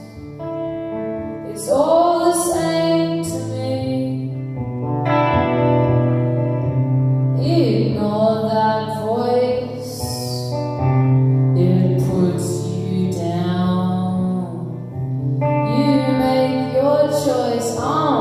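Live solo song: a woman singing slow, drawn-out phrases over a strummed electric guitar played through a small amplifier.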